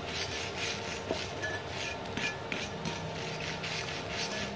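Hand wire brush scrubbing slag off a freshly laid stick-weld bead on a steel plate, about three back-and-forth strokes a second. The strokes pause briefly about two seconds in, with a few small clinks, then resume.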